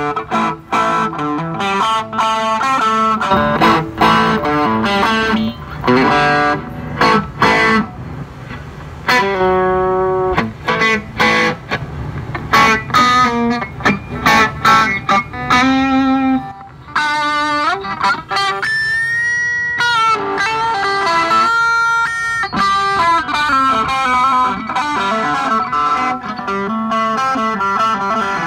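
Electric guitar played through a Fernandes FA15 practice amplifier: quick single-note lead runs and phrases, with a few bent notes about two thirds of the way through.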